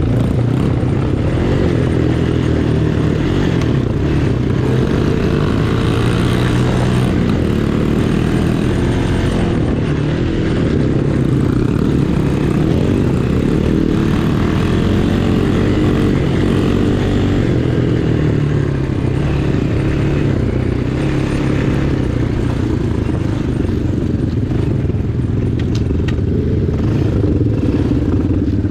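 Small dirt-bike engines running while riding a gravel track, their pitch rising and falling with the throttle.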